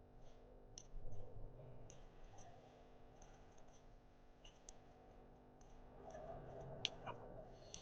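Underwater sound through a dive camera's housing: scattered sharp clicks and crackles over a low rumble.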